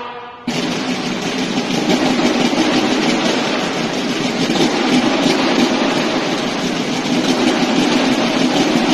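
Massed marching snare drums of a banda de guerra playing a sustained roll that starts suddenly about half a second in, just after the bugles' held chord stops.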